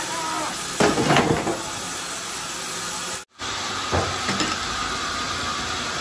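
A heavy coconut palm log knocking and thudding against a sawmill's steel log carriage as it is rolled into place, a cluster of knocks about a second in and another single knock at about four seconds, over a steady hiss.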